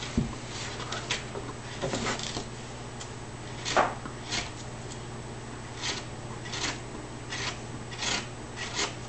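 A hand carving tool cutting into a flat wooden board in a series of short scraping strokes, roughly one every half second to a second, the strongest about four seconds in. A steady low hum runs underneath.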